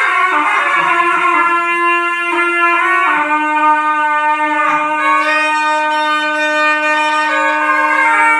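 Two zurnas, loud double-reed folk shawms, playing together: one holds a steady drone note while the other plays an ornamented melody above it. The drone steps down to a slightly lower note about three seconds in.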